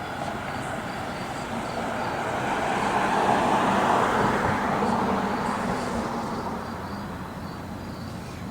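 A road vehicle passing by, growing louder to a peak about halfway through and then fading away.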